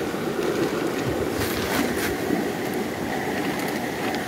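Steady rushing outdoor noise of wind buffeting the microphone over flowing river water.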